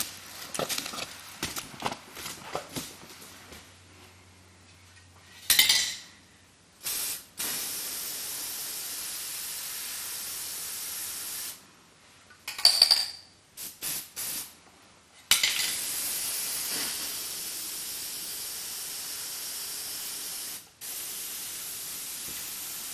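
A run of small clicks and clinks, then long stretches of steady hiss that start and stop abruptly. There are two sharp hits, about five and a half seconds in and about thirteen seconds in, the second with a brief ringing tone.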